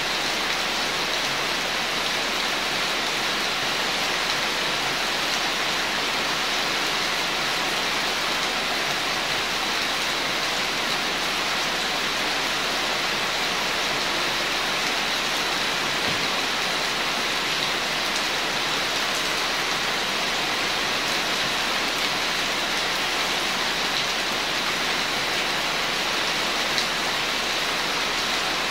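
Steady rain falling on a corrugated metal roof overhead and on the wet ground, an even unbroken hiss with no let-up.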